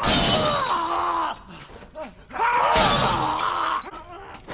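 Glass shattering with a voice crying out over it. The same burst plays twice in a row as an edited loop.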